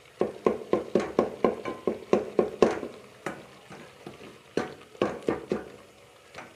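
A wooden spoon stirring and mashing onion and garlic in a simmering aluminium pot, knocking and scraping against the pot. The strokes come quickly, about four a second, for the first two and a half seconds, then only a few scattered strokes. The onion and garlic are being worked into a paste as the water cooks off.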